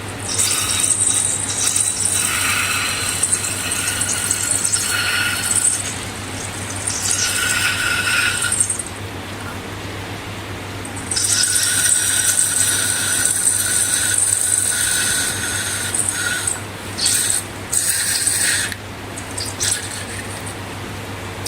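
Hands working slime and a rubber balloon: high-pitched rubbery squeaking and crackling in two long stretches of several seconds, with short pauses between, over a steady low hum.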